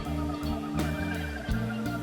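Background music with held bass notes and a steady drum beat.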